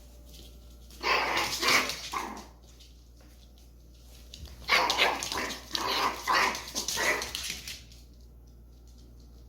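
A dog barking in two bursts of quick, rough barks, the first about a second in and a longer one from about five seconds in.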